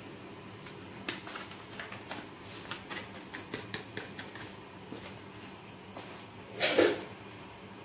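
Soft crinkling and rustling of a small packet as it is torn open and its powder shaken into a glass bowl, with one brief louder sound near the end.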